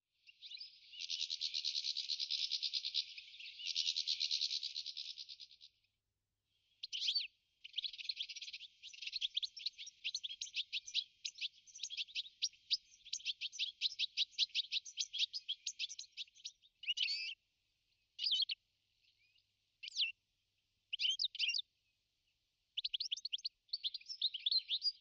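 European goldfinch singing: fast, liquid twittering in long unbroken phrases, breaking into shorter separate bursts in the second half.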